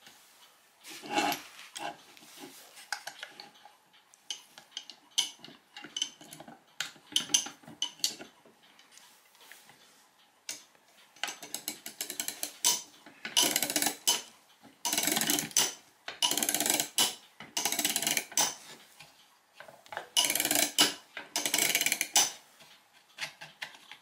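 Ratchet clicking from a homemade plywood clock mainspring winder as its crank is turned, in about seven short runs of rapid clicks in the second half. Before that come scattered clicks and knocks of metal parts being handled.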